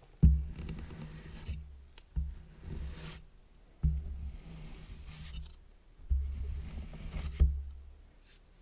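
Kinetic sand being cut and scraped with a metal tool in about five separate strokes, each starting sharply and trailing off, dying away near the end.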